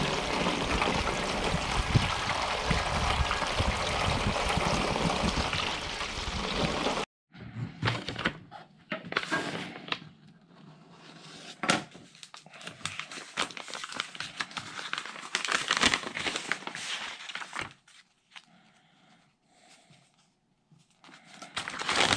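Rainwater pouring steadily from a gutter downspout through a mesh strainer into a rain collection tank, cut off abruptly about seven seconds in. Then a paper envelope crinkling and rustling as it is handled and opened, with occasional sharp knocks on a wooden table.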